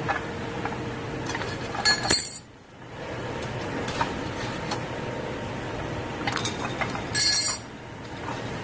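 A hand-lever channel cutter shears slotted metal channel twice, with a loud sharp metallic clank about two seconds in and again about seven seconds in. Lighter metal clinks fall between the cuts.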